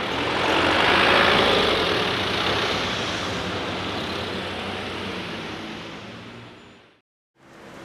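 Road traffic: a motor vehicle passing, a rush of engine and tyre noise that is loudest about a second in and then fades away slowly until it cuts off.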